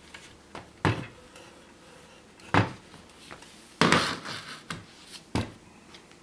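Several short, sharp clacks and knocks of hard objects, spaced about a second or more apart, with a quick cluster of them a little past the middle.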